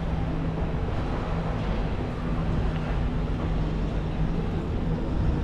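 Steady low rumble of a nearby vehicle, with a constant engine hum underneath.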